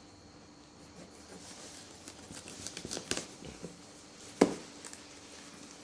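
A knife sawing and scraping at a plastic packing strap and tape on a cardboard box, a run of rough strokes, then one sharp snap a little over four seconds in as the strap gives.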